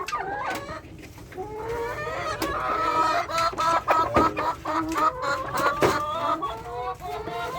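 A flock of chickens clucking and calling over one another as feed is put out for them, with a few sharp knocks among the calls.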